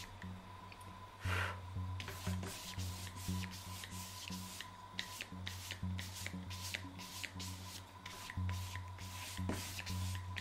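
A wide flat paintbrush scrubbing paint across textured paper, a quick run of dry, scratchy strokes several times a second; the paint drags because it soaks into the paper and is hard to spread.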